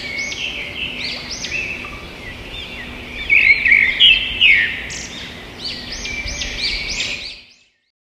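Birds chirping and singing, many short overlapping calls, loudest around the middle, cutting off abruptly about seven and a half seconds in.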